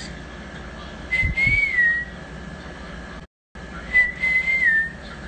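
A person whistling two short notes, each about a second long, the pitch rising a little and then falling, over a faint steady high-pitched tone.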